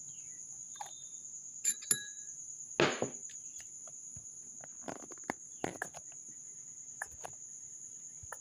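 A steady, high-pitched insect trill, with scattered small clicks and knocks and one louder short rustle just under three seconds in.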